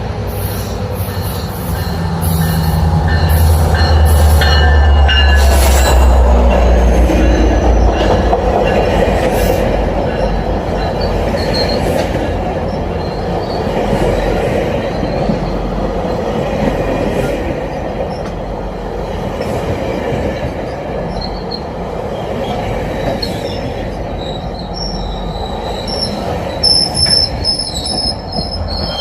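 GO Transit commuter train rolling by with a heavy low rumble, loudest a few seconds in, then the steady rolling noise of the coaches, with high-pitched wheel squeal near the end.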